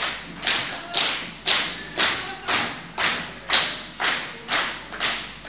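A hall full of people clapping in unison, about two claps a second, each clap trailing off in the room's echo.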